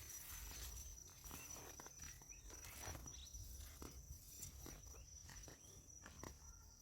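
Faint forest ambience: a steady high-pitched insect drone, with scattered soft clicks and a low rumble underneath.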